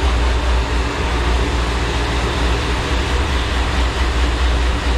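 A steady, loud machine drone: a low rumble under an even rushing hiss, with no change in pitch.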